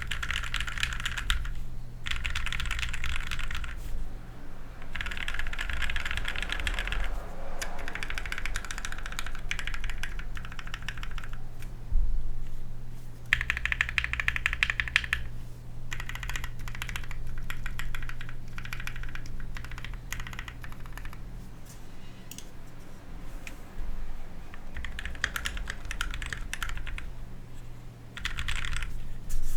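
Typing on a custom KBD67 V2 MKII mechanical keyboard with lubed and filmed Gateron Yellow linear switches on a brass plate with foam: spurts of fast keystrokes broken by short pauses. There is one louder single clack about twelve seconds in.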